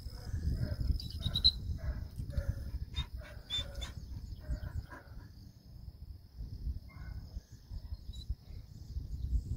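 A dog barking in short repeated calls, about two a second, for the first five seconds, then stopping. A gusty rumble of wind on the microphone runs beneath.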